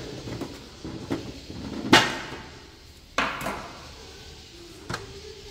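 Hard objects being handled: a sharp clack about two seconds in and a second knock about a second later, with a few lighter clicks around them.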